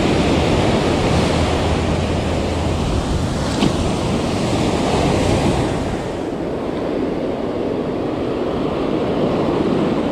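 Ocean surf breaking and washing up the sand close by, with wind buffeting the microphone. There is a single light tap about three and a half seconds in, and the wash becomes thinner and a little quieter about six seconds in.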